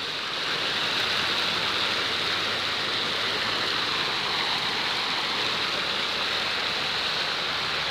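Ornamental fountain's many water jets splashing into its pool: a steady, even rush of falling water.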